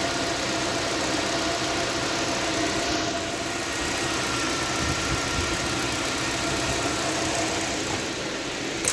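Nissan Sentra's four-cylinder engine idling steadily, no longer misfiring now that a faulty number 2 spark plug, worn down to no electrode tip, has been replaced. A short click near the end.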